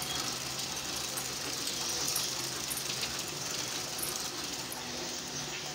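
Bicycle chain and drivetrain running steadily as the pedal is cranked by hand, spinning the rear wheel.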